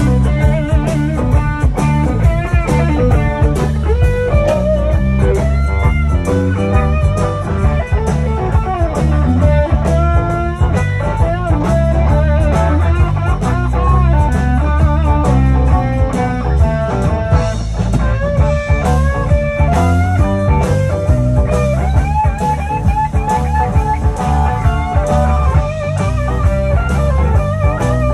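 Live blues-rock band playing, with electric guitar carrying a lead line of bent notes over a steady bass and drum beat.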